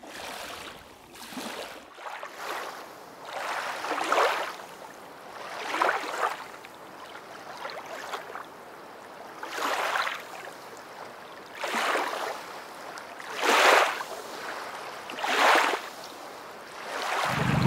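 Small waves lapping onto a pebble lakeshore. Each wash swells and fades, about every two seconds.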